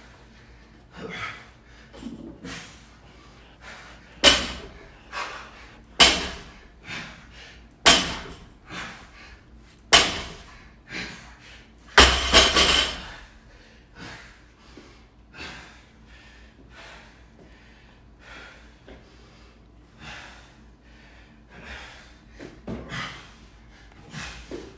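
Loaded barbell with rubber bumper plates set down hard on a rubber floor mat five times, about every two seconds, during deadlift reps; the last drop is the loudest and rattles on briefly as the plates bounce.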